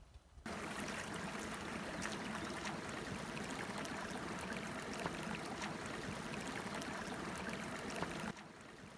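Shallow water running in a thin sheet over a stony trail: a steady rush that starts suddenly about half a second in and cuts off shortly before the end, with boots splashing through it.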